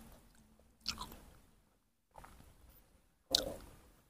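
Wet squishing and chewing as a baby monkey mouths and eats a piece of peeled longan flesh. There are a handful of short, separate smacks about a second apart, the loudest a little past three seconds in.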